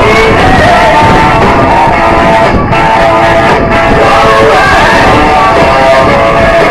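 Loud, steady music.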